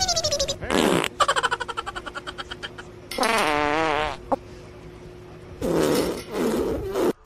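A run of fart sounds: a falling whine at the very start, a long rapid sputtering one about a second in, a wavering pitched one around three seconds, and lower, rougher ones near the end.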